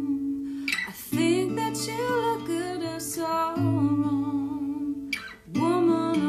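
Steel-string acoustic guitar in DADF#AD open tuning being played, ringing chords with the bass note changing about every two seconds and a fresh strum about a second in and again near the end, with a singing voice over it.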